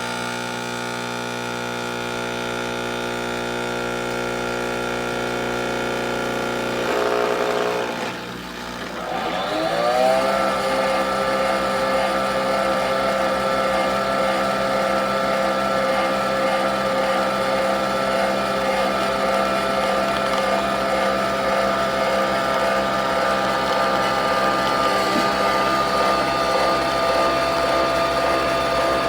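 Nespresso Vertuo Next capsule coffee machine running through a brew cycle, its motor humming steadily. About ten seconds in the motor rises in pitch and settles into a louder, steady whir.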